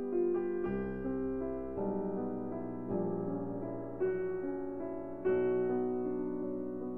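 Slow, gentle piano music, with new notes and chords struck about once a second and left to ring and fade.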